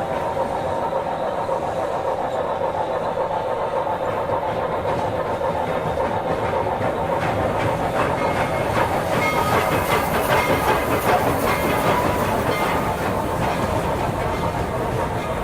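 Steam train running: a steady clatter of wheels over the rail joints with steam hiss, growing somewhat louder in the second half and then easing.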